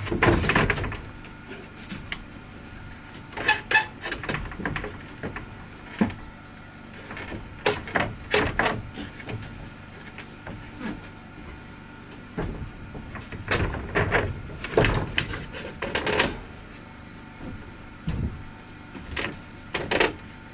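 Wooden boards being handled and worked: irregular knocks and short scrapes of wood on wood, with a handful of louder knocks.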